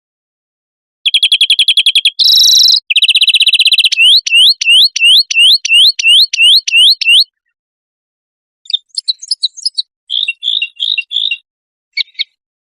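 Loud, clean recorded songbird song: a fast high trill, a short buzzy burst and another trill, then a run of about ten rising whistles, roughly three a second. After a pause come shorter chirps and trills.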